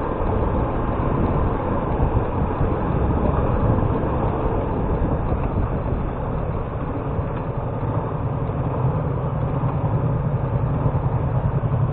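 Motorcycle engine running steadily, a continuous low drone without changes.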